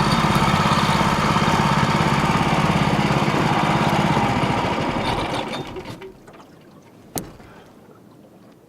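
Small boat outboard motor running with a fast, even beat, then dying away about five to six seconds in as it is throttled down and shut off. A single sharp click follows a second later.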